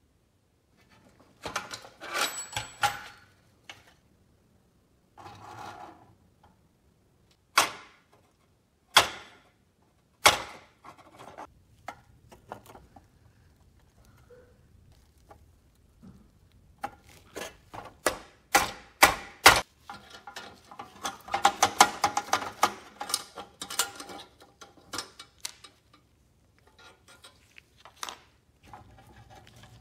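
Metal clinks, rattles and sharp knocks from a rusty sheet-metal toy locomotive being handled and taken apart, its loose rods, pins and spoked wheels clattering. Several single sharp knocks come first, then a long stretch of rapid rattling and clinking in the second half.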